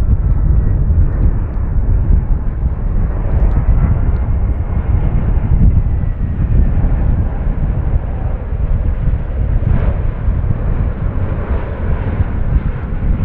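Jet airliner's engines, a loud steady low rumble with a faint high whine above it.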